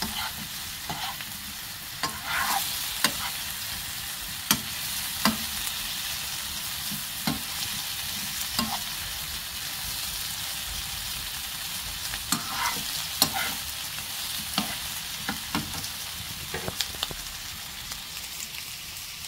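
Sliced pumpkin sizzling steadily in oil in a non-stick frying pan while a metal spoon stirs it, clicking and scraping against the pan at irregular moments.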